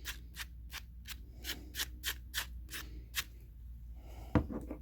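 Light hand-sanding of a plastic door handle bezel with flexible 150-grit sandpaper: short scuffing strokes, about three a second, that stop about three seconds in. A single sharp knock follows near the end.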